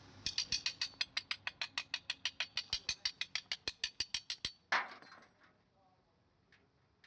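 Rapid, even mechanical clicking, about seven clicks a second for roughly four seconds, then one louder scraping burst that fades away.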